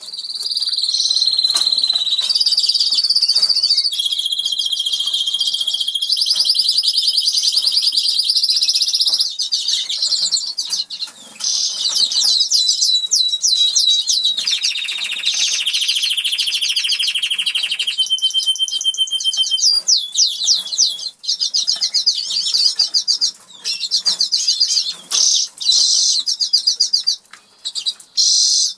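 Norwich canary singing a long, nearly unbroken song of fast rolling trills and held whistled notes, with a lower buzzy roll about halfway through and a few short pauses toward the end.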